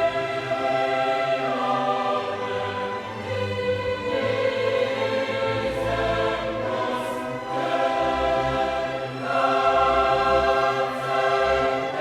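A choir singing sustained chords with an orchestra, classical choral music.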